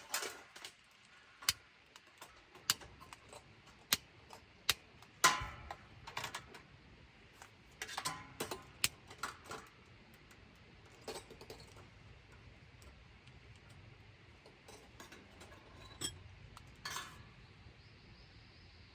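Light clinks and knocks of cooking utensils and dishes being handled, a sharp click every second or so at first, then only a few.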